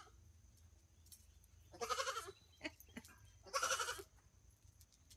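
A goat bleating twice, each call about half a second long with a quavering pitch, the calls about a second and a half apart.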